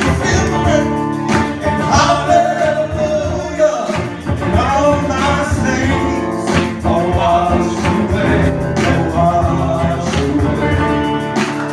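Worship song: a band playing at full volume with a voice singing, the sung lines bending up and down over a steady accompaniment.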